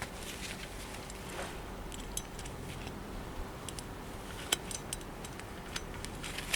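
Scattered small sharp clicks and light clinks at irregular intervals over a steady low background noise, one a little louder about four and a half seconds in.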